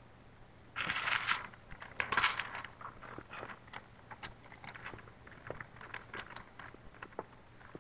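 A person eating close to the microphone, crunching and chewing food: two longer, louder crunches about one and two seconds in, then a string of small crisp clicks.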